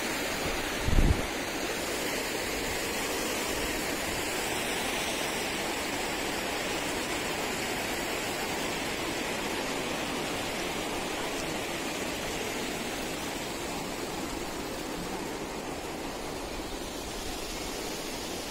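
Steady rush of flowing water from garden fountains and cascading water channels. A brief low thump about a second in.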